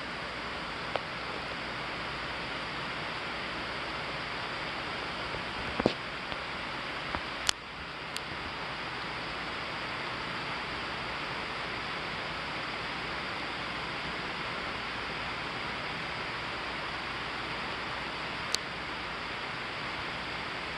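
Steady rain falling as a thunderstorm front arrives, an even hiss broken by a few sharp ticks of drops landing.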